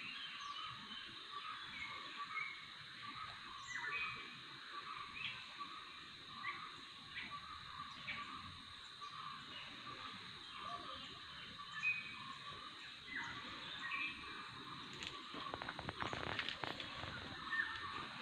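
Garden ambience: scattered short bird chirps over a steady high-pitched hiss, with a few brief rustles and knocks near the end.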